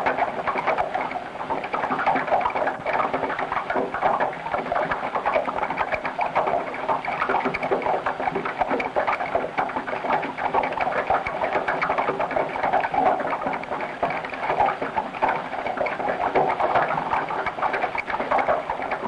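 Abstract film soundtrack: a continuous, dense, rapid clattering of ticks and clicks with a faint steady hum beneath, unchanging throughout.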